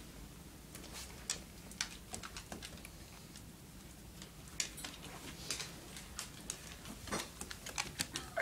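A dog's claws clicking and tapping irregularly on a hardwood floor as it walks and sniffs about, growing busier in the second half.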